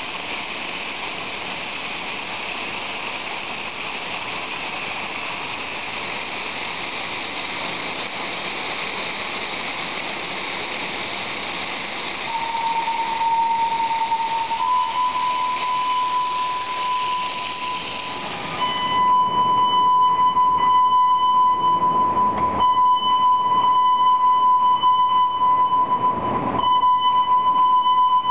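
Fire alarm bells ringing continuously during a bell test. At first the sound is a dense, hissy clatter; about twelve seconds in a clear ringing tone joins it, and some nineteen seconds in the clatter stops while the ringing tone carries on louder.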